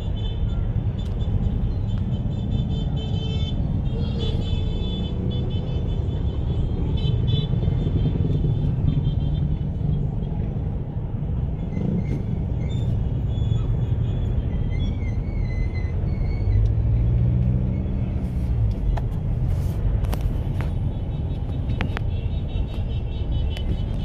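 Steady low rumble of a car's engine and road noise heard from inside the cabin in slow traffic, with music playing faintly. An engine note swells about two-thirds of the way in, and a few sharp clicks come near the end.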